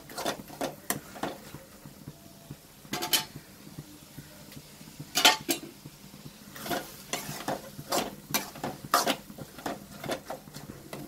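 A spoon stirring and scraping sliced onions and tomatoes in a metal kadai over a soft sizzle as they sauté, with irregular knocks of the spoon against the pan. The loudest knocks come about three and five seconds in.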